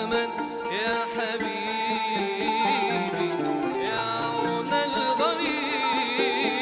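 Arabic takht-style ensemble playing an instrumental passage: a ney flute carries a wavering, vibrato melody over plucked oud and qanun, with a riq (small frame drum with jingles) keeping time.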